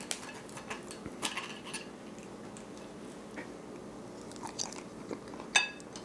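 Knife and fork cutting a thin pancake on a plate, with small scrapes, and a person chewing a bite of it. A sharp clink of cutlery on the plate rings briefly near the end.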